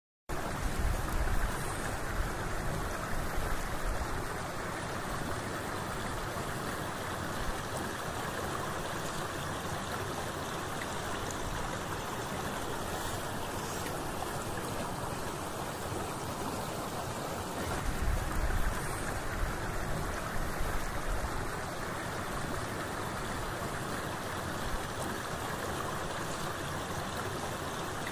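Steady rushing of flowing water, with louder low rumbles for a few seconds near the start and again around eighteen seconds in.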